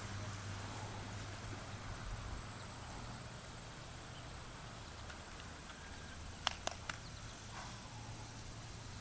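Quiet background with a steady, faint high trill and a low hum; three quick sharp clicks about six and a half seconds in.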